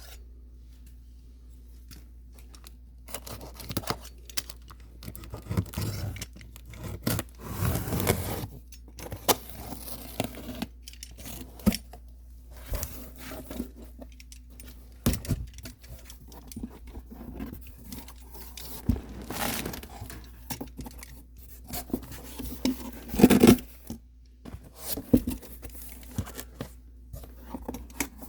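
A delivery parcel of cat food being opened by hand: tearing, scraping and rustling of packaging in irregular bursts, the loudest late on, over a low steady hum.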